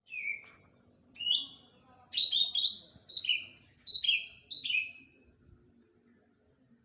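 Cucak ijo (green leafbird) singing a quick run of clear whistled notes, many of them sliding down in pitch, grouped into short phrases and loudest in the middle of the run.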